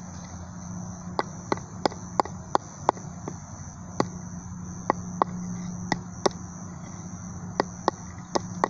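Steady high-pitched insect drone with a low steady hum beneath, broken by about a dozen sharp, irregularly spaced clicks.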